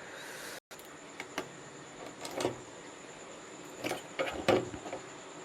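Faint, scattered clicks and scrapes of hand tools working on a circuit board while a volume potentiometer is desoldered and pulled out, over a low steady hiss.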